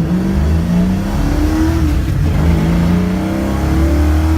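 1968 Ford Mustang's engine accelerating through the gears on a manual gearbox: the revs climb, drop at an upshift about two seconds in, then climb again.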